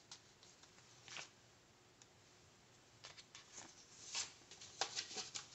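Paper sticker sheets being handled on a planner: scattered light rustles and taps, sparse at first and busier over the last two and a half seconds.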